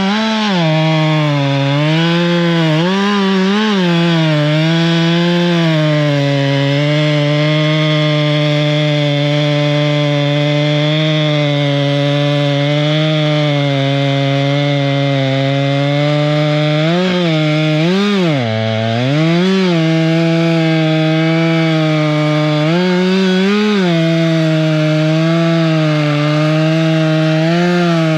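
Chainsaw engine running at high speed through a cut. The pitch holds steady but drops briefly several times as the chain bites into the wood, then recovers; the deepest dip comes about two-thirds of the way through.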